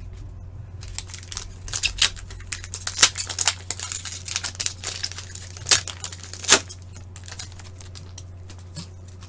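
Foil wrapper of a 2020-21 Upper Deck Series 1 hockey card pack crinkling and tearing as it is opened by hand: a run of crackles with a few sharper snaps, easing off near the end.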